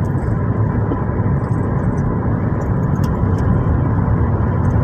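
Steady engine and road noise heard inside the cabin of a moving taxi driving along a main road.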